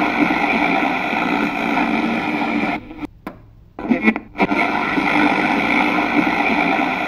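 Portable transistor radio hissing with static, not tuned to a station. The hiss cuts out about three seconds in, comes back briefly, and cuts out again just after four seconds before returning.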